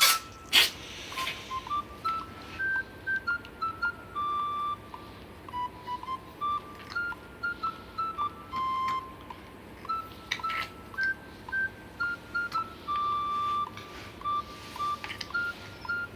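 Background music: a simple, unhurried melody of single beep-like notes. Short sharp bursts of noise cut in twice, at the very start and again about ten seconds in.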